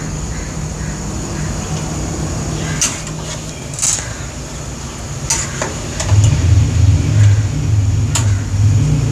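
Metal spoon stirring mutton and spices in an aluminium pressure cooker, with a few sharp scrapes and clinks against the pot, over a steady low rumble that gets louder about six seconds in.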